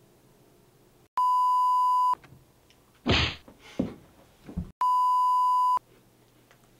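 Two censor bleeps, each a steady 1 kHz beep lasting about a second, the second coming about two and a half seconds after the first; they blank out swearing. Between them come a few short breathy bursts of noise.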